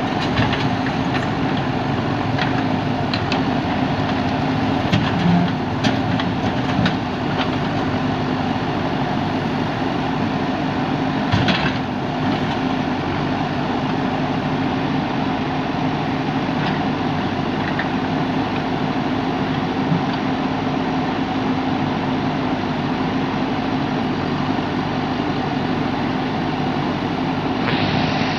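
JCB backhoe loader's diesel engine running steadily, with scattered sharp knocks over it, the loudest about eleven and a half seconds in.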